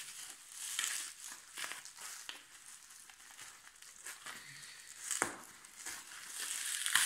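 Bubble wrap and plastic wrapping crinkling and rustling as it is peeled off by hand, with a sharp click about five seconds in.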